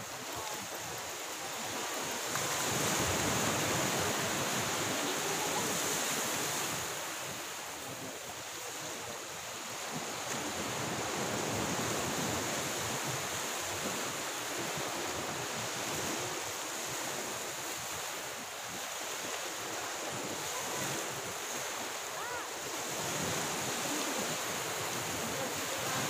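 Sea surf washing onto the shore, the noise swelling and easing every several seconds, with a steady high hiss over it.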